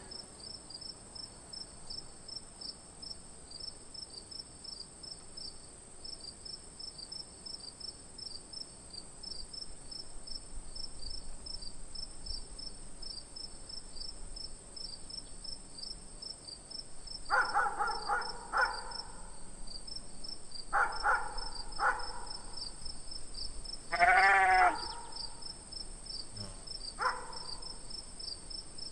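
Insects trill steadily and high throughout. From just past halfway, a farm animal bleats about four times in separate calls, and one wavering bleat is the loudest.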